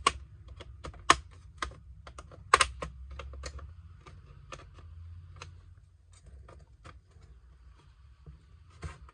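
Plastic snap clips of an HP 15s laptop's bottom case popping loose as it is pried open with an iSesamo pry tool: a run of irregular sharp clicks and snaps, the loudest in the first three seconds, growing sparser toward the end.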